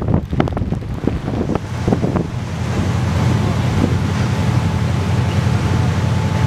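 Strong wind blowing spray off a fjord waterfall, buffeting the microphone. It crackles in gusts for the first two seconds or so, then settles into a steady, louder low rumble.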